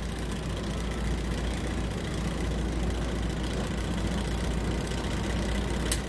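A steady low mechanical hum, with one light click near the end.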